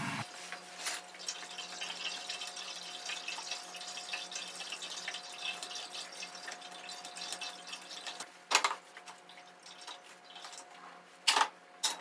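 Faint splashing and dripping of stock as it is ladled from a stainless stockpot, over a steady low hum. There is a sharp knock about two-thirds of the way in and two more near the end.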